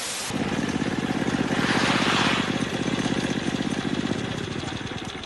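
A brief hiss of TV static, then a small motorbike engine buzzing steadily, growing louder for about two seconds and then slowly fading.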